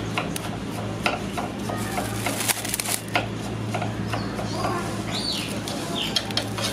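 Clay pots and aluminium foil being handled: a scatter of light taps and clinks over a steady low hum, with a few short high chirps in the second half.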